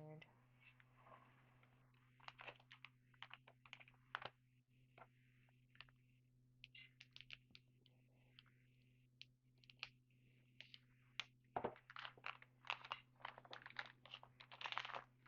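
Faint clicks and rustles of trading cards being handled and slid over one another, scattered at first and busier near the end, over a faint steady hum.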